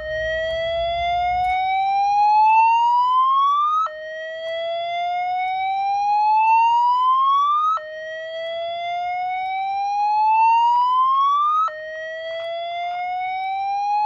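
Fire alarm speaker/strobe sounding a slow whoop alert tone: a tone rises steadily in pitch over about four seconds, drops back and rises again, four times over. This is the evacuation alert played between the spoken emergency messages.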